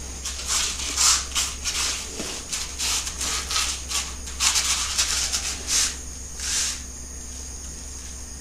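Irregular rustling of a cloth hammock and clothing as a person shifts in it, in short bursts over the first two-thirds, over steady chirping of crickets.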